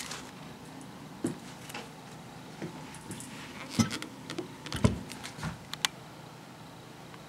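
Irregular sharp clicks and light knocks, a dozen or so scattered over several seconds, as of small hard objects being handled; the loudest pair falls around the middle.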